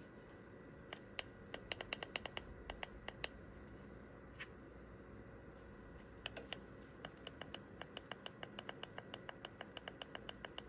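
Two runs of light, quick clicks, about four or five a second, with a single click between them.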